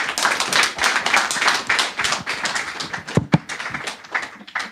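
Audience applauding: dense clapping that thins out near the end.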